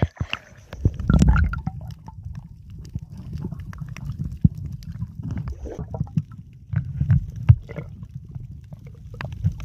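Seawater rumbling and gurgling against a phone's microphone held underwater, muffled, with scattered small clicks and a louder surge of water about a second in as it goes under.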